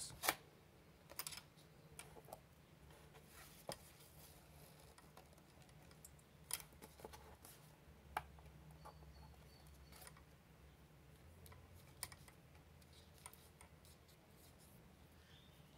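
Near silence broken by faint, irregular clicks and rustles of hands working nylon cord, tying macramé square knots.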